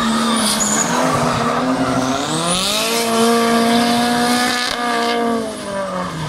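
Drift car engine revving hard through a slide, with tyres squealing and scrubbing. The engine pitch climbs over the first three seconds, holds high, then drops near the end as the car moves away.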